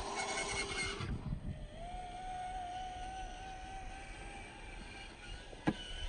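Traxxas TRX-4M RC crawler's electric motor and gears whining steadily as it drives through snow, the pitch stepping up about a second in and rising a little just after. A single sharp click near the end.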